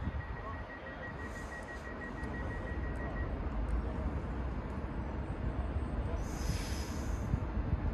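A train approaching on the line, a low rumble slowly growing louder, with a short hiss about six seconds in.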